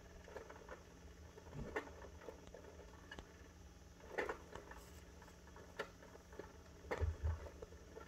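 Faint, scattered taps, clicks and soft knocks from a kitten moving and pawing about in a wire crate, with two low thumps about seven seconds in.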